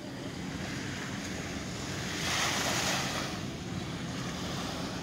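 Small sea waves breaking and washing up a sandy beach, one wave swelling louder about two seconds in, with some wind on the microphone.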